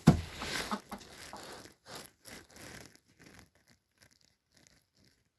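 A sharp thump at the start, then short rustling and scratching sounds of hens pecking and scratching in wood shavings and feed, dying away to near silence after about three and a half seconds.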